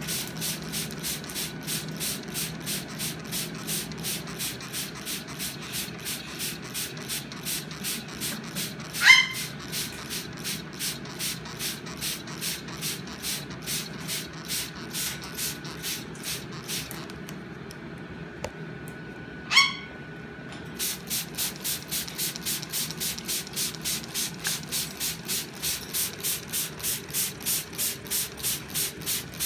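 Shower water spraying in even pulses, about three a second, with a break near the end. A Goffin's cockatoo gives a short, loud screech twice over it.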